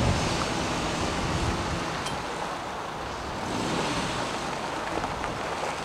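Wind rushing over the microphone, mixed with a 2022 Suzuki Jimny's four-cylinder petrol engine running at low revs as it crawls over rocks.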